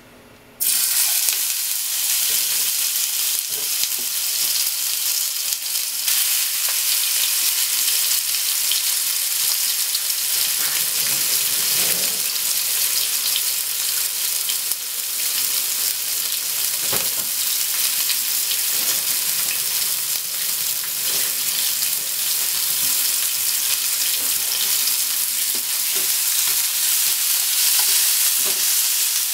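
Cubes of pork belly going into hot oil in a frying pan: a loud sizzle starts suddenly about half a second in and goes on as steady frying, with the meat stirred with chopsticks near the end.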